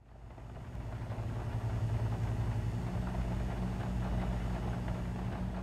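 Low steady hum with a faint crackle, fading in from silence and beginning to fade out near the end.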